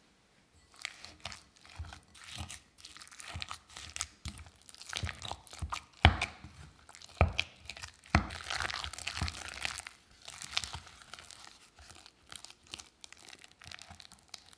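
A wooden spatula stirring and folding minced shrimp paste in a glass bowl: wet squelching and scraping with many small clicks. A few sharper knocks come around six, seven and eight seconds in.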